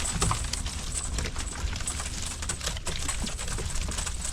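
Quick, irregular taps and knocks from freshly netted mullet and the cast net on the deck of a boat, over a steady low rumble.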